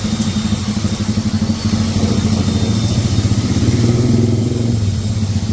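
A small engine running steadily with a pulsing hum, under the hiss of a hose nozzle spraying into a flood-soaked electrical distribution panel to clean it.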